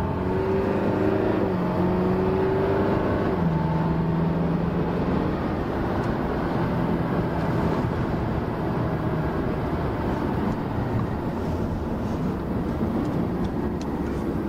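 Alfa Romeo Giulia 2.2 JTD four-cylinder turbodiesel heard from inside the cabin while driving. Its engine note is clear for the first five seconds or so, with steady tones that shift in pitch, then gives way to an even tyre and road noise.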